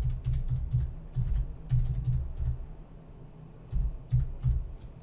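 Computer keyboard being typed on: quick runs of keystrokes with a pause of about a second midway.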